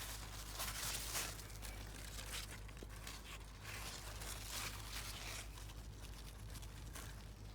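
Rustling and crinkling in repeated uneven bursts, loudest about a second in, over a steady low hum.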